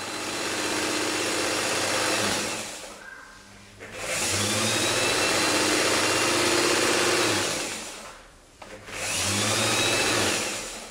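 Electric sewing machine running in three bursts, about two and a half, three and a half and one and a half seconds long, with short stops between. Each run speeds up with a rising whine.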